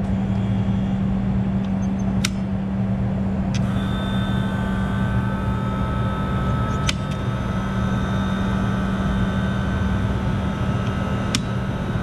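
Circuit breakers snapped on one at a time: three sharp clicks about four and a half seconds apart, over a steady low hum of running equipment. About three and a half seconds in, a motor starts and adds a steady whine as the re-energised equipment starts up.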